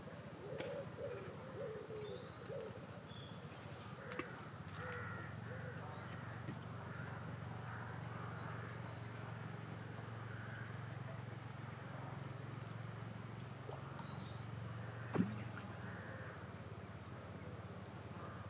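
Wild birds calling: low hooting or cooing calls in the first three seconds, and small birds chirping high, over a steady low hum. A single sharp click about fifteen seconds in.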